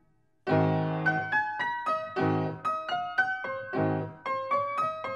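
Background piano music: a light melody of single notes over low chords struck about once a second, starting about half a second in after a short silence.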